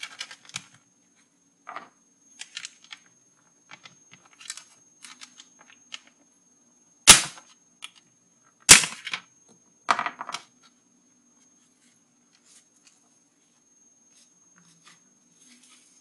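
Plastic parts of a CD-ROM drive's tray being handled and pried with a small screwdriver: small clicks and scrapes, then two loud sharp snaps about a second and a half apart near the middle, followed by a short rattle, as the plastic clips give way.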